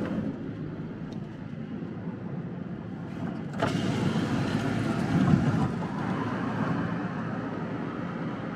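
Road and engine noise inside the cab of a van driving over a bridge, a steady rush that gets louder about three and a half seconds in.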